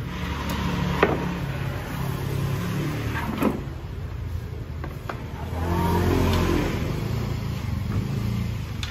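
A motor engine running, its pitch rising and falling, with two sharp knocks, about a second and three and a half seconds in.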